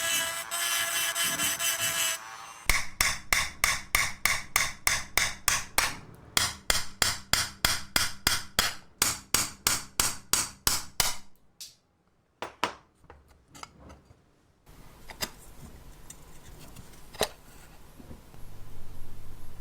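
A run of quick, evenly spaced hammer strikes, about three or four a second, lasting some eight seconds, then a few scattered taps. Background music plays for the first couple of seconds.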